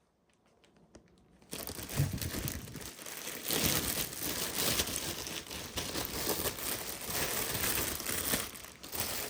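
Plastic wrapping crinkling and rustling as it is handled and pulled off, starting abruptly about a second and a half in after a few faint clicks.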